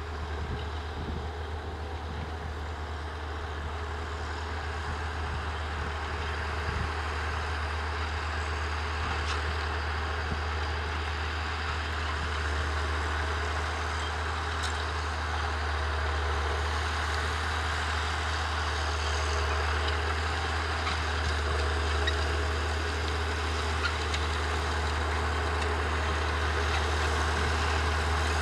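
John Deere 7920 tractor's six-cylinder diesel engine running steadily while it pulls a Horsch Joker disc cultivator through the soil, growing louder as the tractor comes closer.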